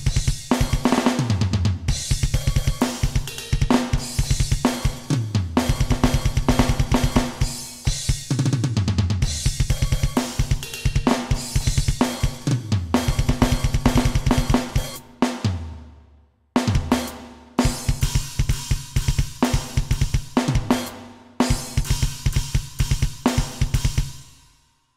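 Alesis Nitro Mesh electronic drum kit triggering custom sampled metal drum sounds: fast kick drum strokes under snare, hi-hat and cymbals. Several tom fills fall in pitch from high to low toms, and the playing stops briefly about 16 seconds in and again just before the end.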